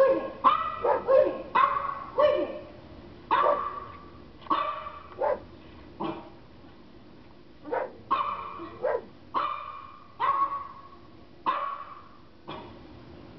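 Dog barking over and over, single barks and quick doubles about once a second, with a short lull a little before the middle: a German shepherd barking back at recorded dog barking.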